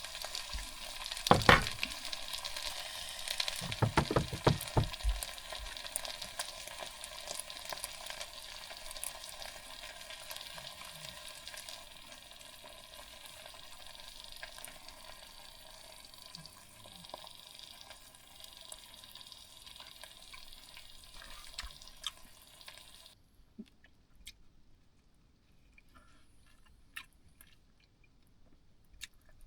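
Food sizzling as it fries in a pan, with a few knocks and scrapes of a utensil stirring it in the first five seconds. The sizzling cuts off suddenly near the end, leaving only faint clicks.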